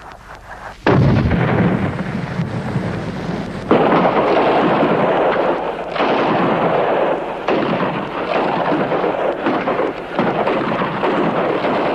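Battlefield explosions: a sudden blast about a second in, then a continuous heavy rumble with fresh blasts about every two seconds.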